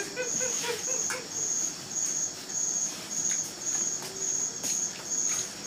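An insect chirping in a steady rhythm: short, high-pitched chirps repeating a little under twice a second.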